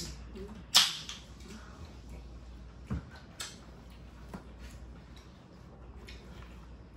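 An aluminium soda can pulled open: a sharp crack and a short fizzing hiss about a second in. Then a dull knock near the middle and scattered small clicks of utensils and plastic food containers.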